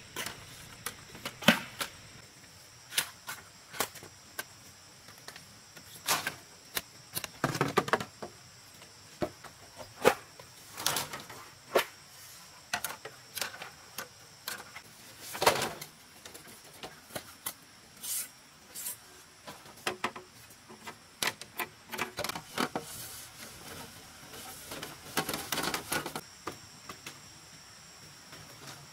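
Split bamboo strips clattering and clacking against each other and the bamboo pole frame as they are handled and laid across it, in irregular knocks with a few longer rattles.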